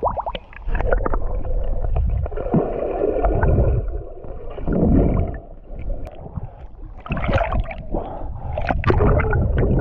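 Lake water sloshing and gurgling against a camera held at the surface by a swimmer, going muffled as it dips underwater, with splashes and a swimmer blowing water out of his mouth near the end.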